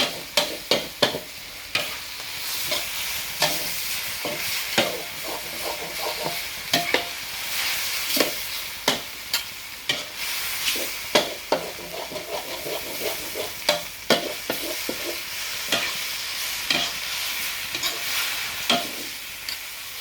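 Stir-fried noodles sizzling in a pan while a spatula and a spoon toss them, clacking and scraping against the pan about once or twice a second over a steady sizzle.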